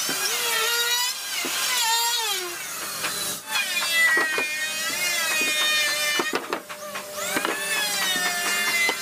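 Handheld electric router running and cutting wood, its whine dipping in pitch and recovering again and again as it is pushed into the cut, with a few sharp knocks mixed in.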